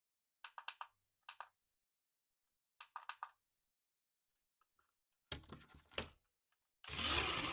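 Hands handling plastic toy parts: several quick clusters of light clicks and taps. Near the end come two sharp thumps, then a louder burst of scraping or rustling.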